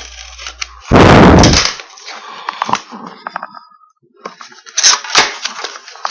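Packaging of a hockey card box being opened and handled: a loud rush of noise about a second in, then crackling and sharp clicks of wrapping and cardboard, a short lull, and more crackling and clicks near the end.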